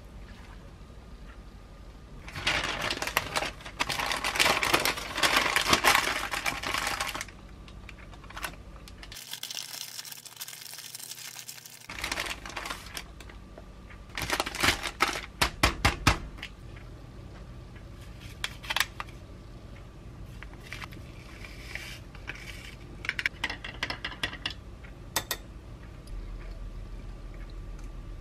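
Baking paper rustling and crinkling as a sandwich is wrapped into a parcel, followed by scattered light clicks and taps on a kitchen counter.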